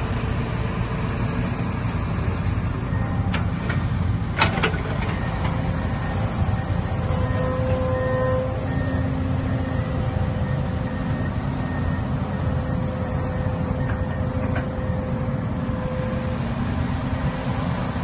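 Komatsu bulldozer's diesel engine running steadily with a deep rumble, with a few sharp knocks about four seconds in.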